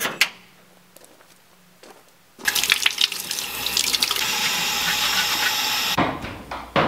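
Water from a garden hose pouring into a utility sink and over hands rinsing something under the stream: a steady rush that starts about two and a half seconds in and stops about a second before the end.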